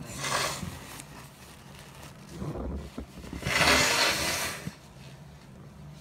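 A woman's two forceful, breathy bursts of air: a short one at the start and a longer, louder one about three and a half seconds in.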